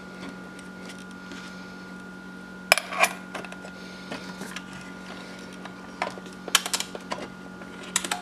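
Stainless steel lunchbox being handled: small steel lids pressed onto the containers and the box lid shut, giving a few sharp metallic clicks about three seconds in and a cluster of clicks and clacks near the end. A steady low hum runs underneath.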